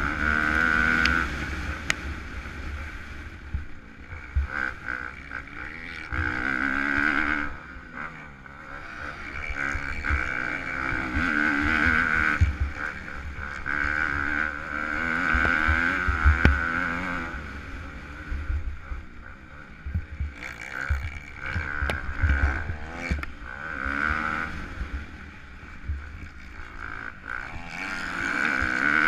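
Kawasaki KX250F single-cylinder four-stroke motocross engine under race load, revving up and backing off again every couple of seconds as the throttle is worked, with wind rumble on the microphone.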